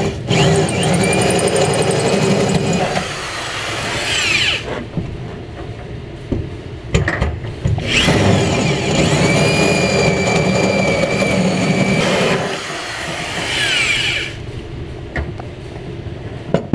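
Power drill driving a 1.25-inch hole saw through the sheet-metal side of a pickup bed, in two bursts of several seconds each. Each time the drill's whine falls away as it spins down.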